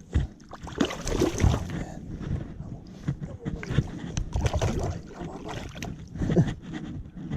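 Irregular thumps, rustling and crackling of close handling noise, with wind buffeting the microphone.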